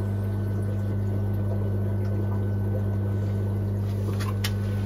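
Steady low hum of running aquarium equipment with water trickling from a sponge filter, and a couple of faint clicks about four seconds in.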